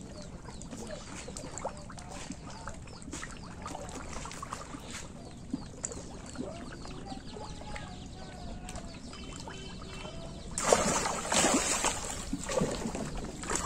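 Quiet pond-side ambience with faint scattered ticks and calls, then, about ten and a half seconds in, loud water splashing as a bamboo fish basket is plunged into the shallow pond water.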